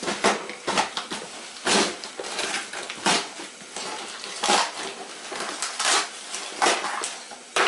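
Cardboard shipping box and its packing being handled and pulled open: irregular crinkling, rustling and crackling with a few sharper snaps.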